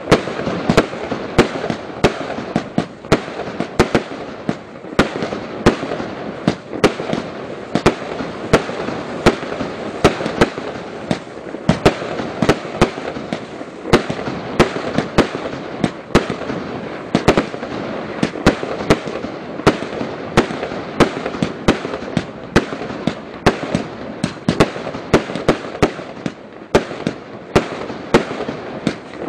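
An 80-shot consumer firework barrage cake firing shot after shot at about two to three a second, with a continuous crackle between the shots.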